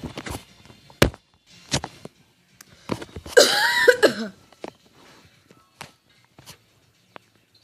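A man coughing: a few short, sharp coughs in the first two seconds, then one longer cough of about a second, roughly three and a half seconds in.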